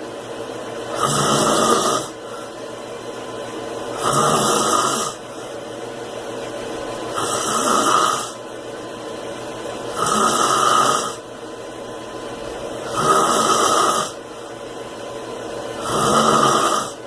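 A man snoring in his sleep: a loud snore about a second long comes about every three seconds, six in all, with quieter breathing between them.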